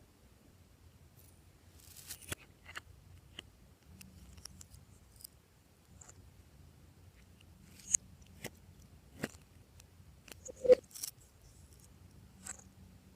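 Glossy slime being worked by hand, giving scattered sticky clicks and pops with quiet gaps between them; the loudest pop comes a few seconds before the end.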